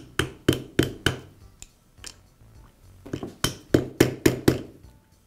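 A hammer tapping on a socket and extension to drive the spiral gear and spring assembly down onto a Makita angle grinder's armature shaft. There are four quick sharp taps, a pause of about two seconds, then another run of quick taps, about three to four a second.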